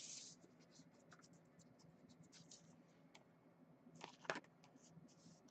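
Faint scratching and light tabletop handling noises, with a couple of soft taps about four seconds in.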